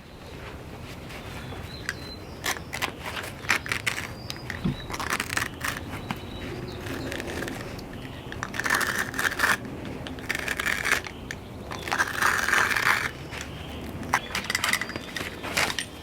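Crackling, rustling and scraping of materials being handled, with many scattered clicks and knocks and a few longer rustling stretches, the loudest near two-thirds of the way through.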